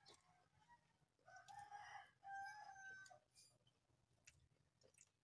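A rooster crowing once, faint, one call lasting about two seconds.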